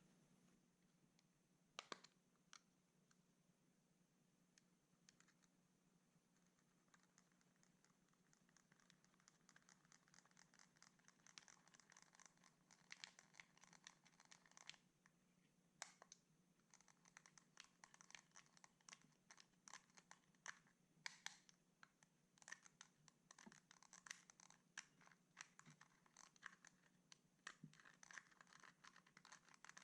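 Quiet scratching with crackling clicks from makeup being worked into clear slime. The clicks are sparse at first and grow dense and continuous from about a quarter of the way in.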